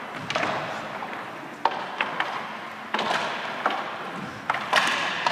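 Irregular sharp clacks of hockey sticks striking the ball and each other during unicycle hockey play, about eight knocks with the loudest near the end, each ringing briefly in the echoing sports hall.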